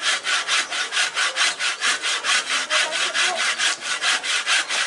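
Hand saw cutting through wood in quick, even back-and-forth strokes, about five a second.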